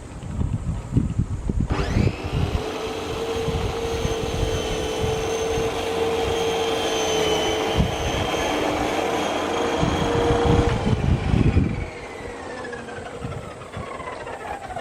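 Makita MLM-2851 reel lawn mower's motor and reel switched on about two seconds in, running with a steady whine, then switched off near eleven seconds and spinning down in falling pitch. The owner takes the abnormal noise of this mower for the reel-blade shaft bearing.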